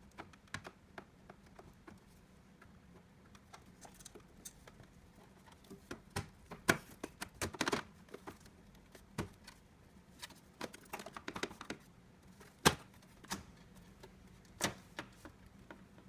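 Irregular small clicks and taps of a plastic power-supply connector, its pins and hand tools being handled, with a busier run of clicks about halfway through and a sharp single click a little later.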